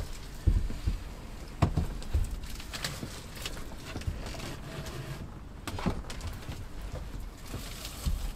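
Scattered knocks, taps and rubbing as a new dashboard panel is handled and set in place on a motorhome's dash, with a few low thumps in the first two seconds and another near the six-second mark.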